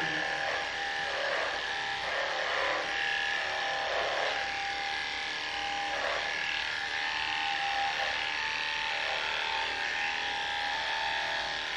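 Electric dog grooming clippers running with a steady hum while shaving a Jack Russell terrier's coat.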